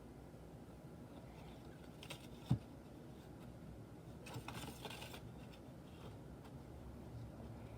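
Faint scraping and light tapping of slime being stirred in a container with a paintbrush, with one dull knock about two and a half seconds in and a short stretch of rustling scraping near the middle.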